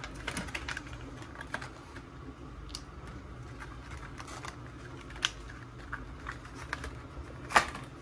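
Clear plastic clamshell packaging crackling and clicking as it is handled and a dimmer switch is lifted out, with irregular clicks and a louder click near the end.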